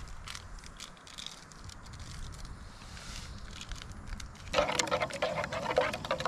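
Spoon stirring in a metal mess tin: from about two-thirds of the way in, repeated scraping strokes that make the tin ring. Before that, only faint scattered clicks and rustles.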